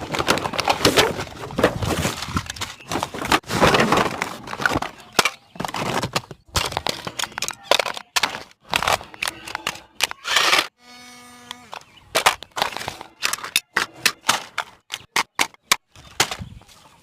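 Plastic toy packaging being handled and opened, a dense run of crackling, cracking and snapping clicks. About eleven seconds in, a brief steady electronic tone lasting about a second breaks in.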